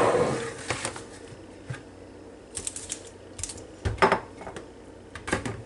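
A plastic mixing bowl being handled on a kitchen counter: a few scattered light knocks and clicks, the loudest about four seconds in.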